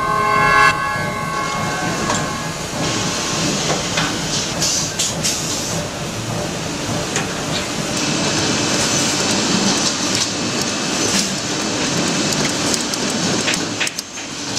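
Shoe-factory machines running with a steady rattling clatter and scattered sharp clicks; a short whine at the start fades out within about a second.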